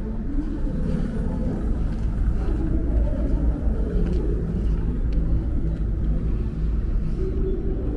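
Steady low vehicle rumble with a faint, slowly shifting engine drone over it.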